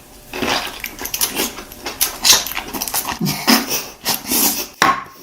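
Close-miked eating sounds as Buldak noodles and mushrooms are slurped and chewed: a quick, irregular run of wet slurps and smacks.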